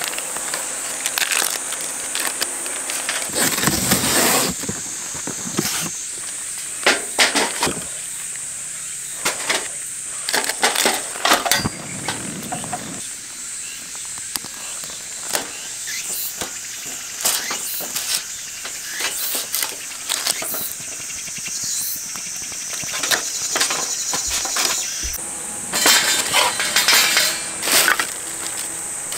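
Insects droning steadily at a high pitch, with scattered clinks, knocks and clatter from a metal charcoal chimney starter and a portable gas stove being handled, loudest near the end.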